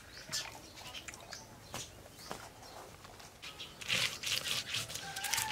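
A knife cutting and scraping through fish: scattered crunching strokes that thicken into a fast run of rasping strokes about four seconds in.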